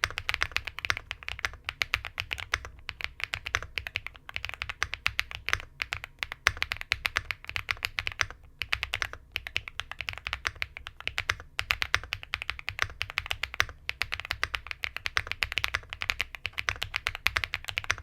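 Rainy 75 mechanical keyboard with stock switches being typed on quickly: a dense run of keystroke clacks that pauses briefly every couple of seconds.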